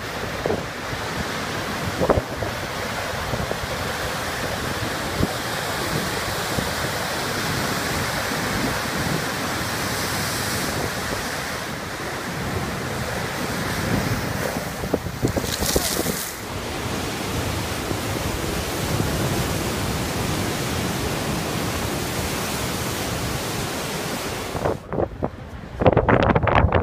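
Rough storm sea at high tide surging and breaking against a sea wall and bridge piers: a steady rush of surf, with wind on the microphone and a brief louder hiss of spray about two-thirds of the way through. In the last couple of seconds the surf noise gives way to uneven wind buffeting on the microphone.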